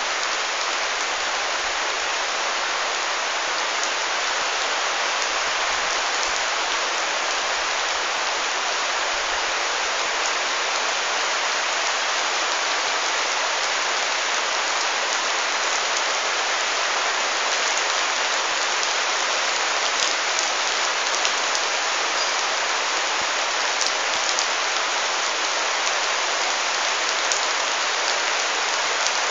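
Heavy rain falling steadily, a dense, even hiss, with a few sharper individual drop hits in the second half.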